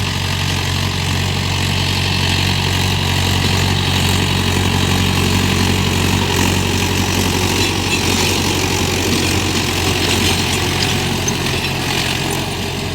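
Tractor engine running steadily while ploughing, with a hiss on top that grows louder in the middle.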